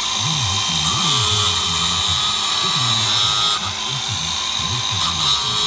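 Angle grinder running steadily, sharpening the teeth of a chainsaw chain.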